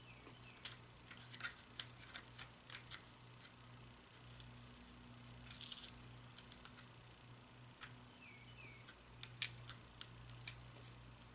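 Faint, scattered clicks and taps of the cordless phone's small plastic parts being handled and fitted back together, over a steady low hum.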